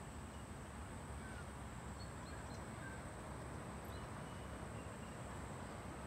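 Steady outdoor background noise with a low rumble, a thin steady high-pitched whine, and a few faint short bird chirps scattered through it.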